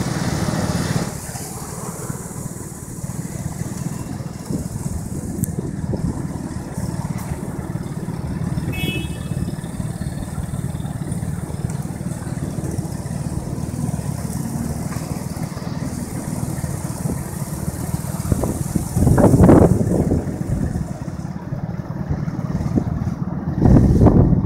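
Urban road traffic at an intersection: a steady low rumble of idling and passing cars and scooters, with two louder low rushes, one about three-quarters of the way through and one near the end.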